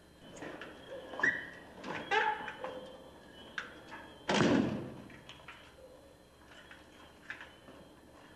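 Light clinks and knocks of a cup and saucer being handled, then one louder thud with a brief rush of noise about four seconds in.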